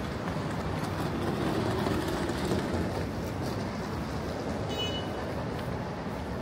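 Steady low rumble of passing vehicles on a city street, with one short high beep about five seconds in.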